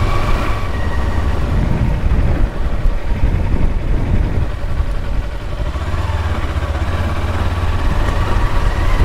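Kawasaki Versys-X 300's parallel-twin engine running steadily as the motorcycle rides along, with a thin steady whine over the low rumble.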